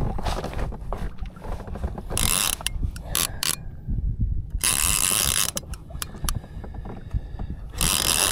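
A conventional saltwater fishing reel worked during a fight with a large fish: many ratcheting clicks, with three short bursts of line being pulled off the drag about two, five and eight seconds in. Wind and water rumble underneath.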